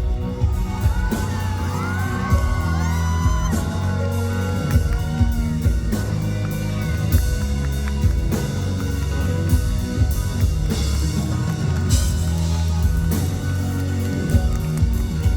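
Live band music at a concert, with steady bass and regular drum hits, while audience members whoop and yell over it in the first few seconds.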